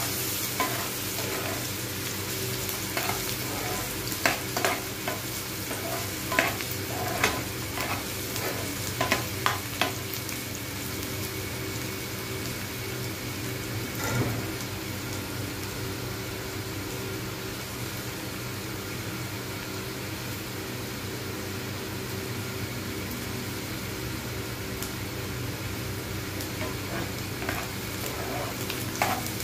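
Chopped onions sizzling steadily in hot oil in a frying pan. A metal spoon scrapes and clicks against the pan as they are stirred, often through the first ten seconds or so and again near the end.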